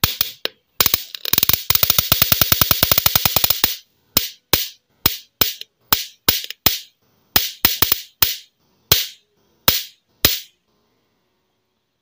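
Stun gun sound effect: a continuous rapid crackle of electric arcing for about four seconds, then about a dozen short separate zaps, ending about ten seconds in.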